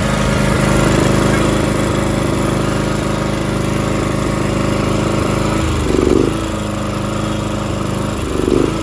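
John Deere X300R lawn tractor engine idling roughly, with two brief surges about six and eight and a half seconds in. This is the rough idle and surging caused by a failed choke valve spring on its aftermarket carburetor, which leaves the choke stuck closed.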